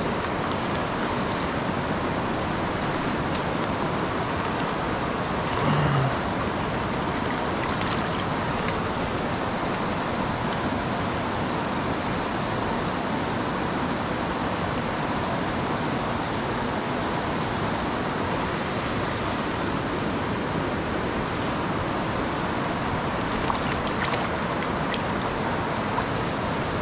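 Steady rush of a fast-flowing, high-running mountain river, with a brief low sound about six seconds in.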